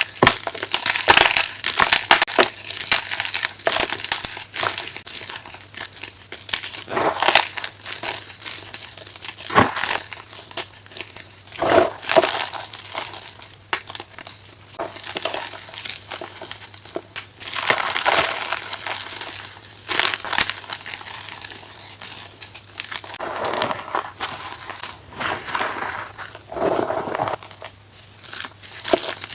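Blocks and chunks of chalk being crushed and crumbled, a steady stream of dry crunching and crackling with louder crunches every few seconds.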